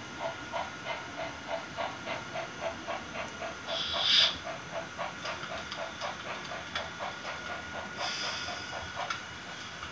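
Digital sound of a Märklin HO model steam locomotive: steady chuffing at about three beats a second, with a loud burst of steam hiss about four seconds in and a shorter hiss around eight seconds.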